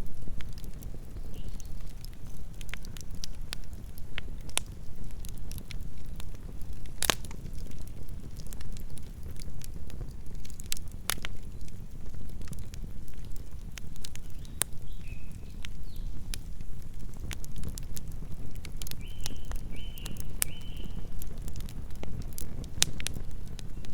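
Campfire burning with a steady low rumble and irregular crackles and pops of burning wood. One pop about seven seconds in stands out. A few short, faint high notes are heard near the end.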